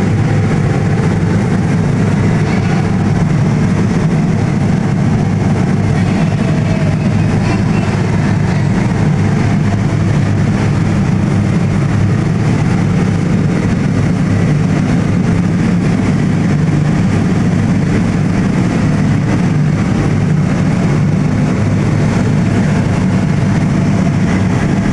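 An engine running steadily with a low, even hum, unchanging throughout.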